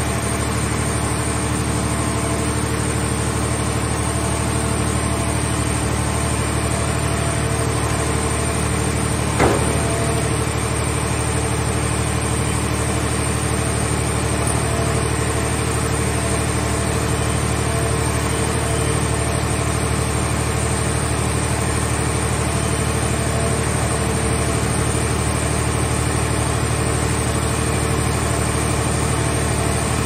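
Steady drone of a scrap car baler's hydraulic machinery running while its grab crane holds and swings a car body, with one sharp knock about nine and a half seconds in.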